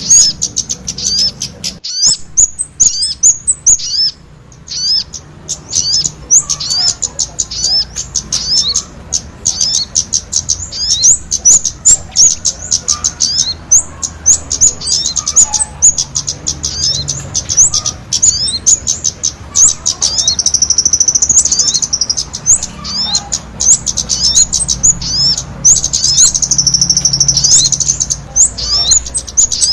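Bird-lure recording of small songbirds, sogon calls mixed with kemade calls: a dense, continuous stream of rapid high-pitched chirps and twitters, pausing briefly about four seconds in, with longer wavering trills twice in the second half.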